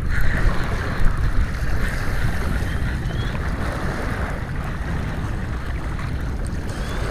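Wind buffeting the microphone over lapping sea waves, with the whirr of a spinning reel being wound through the first few seconds.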